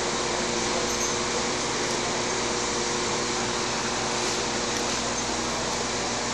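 Steady hiss and hum of a running ventilation fan, with a few low steady tones under it.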